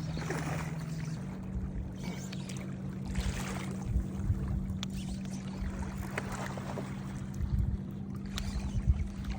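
A motor hums steadily and steps up slightly in pitch about a second in, with scattered knocks and splashy water noise.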